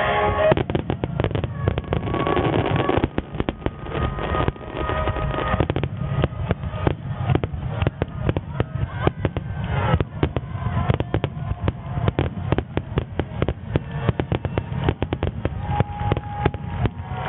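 Super Starmine barrage: many aerial firework shells bursting in rapid, overlapping succession, loud and continuous. Music plays faintly underneath.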